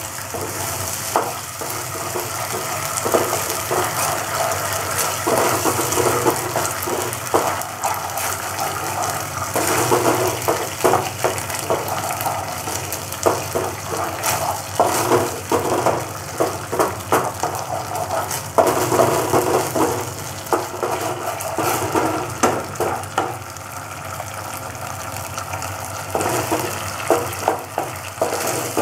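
Tomato sauce sizzling in a non-stick frying pan as a spatula stirs and scrapes it, with frequent clicks and taps of the spatula against the pan.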